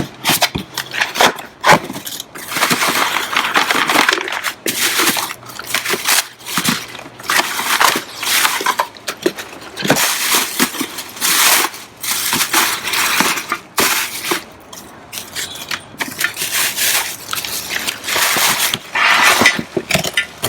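Irregular bursts of crinkling and rustling, like packaging being handled and torn, with a few sharper cracks.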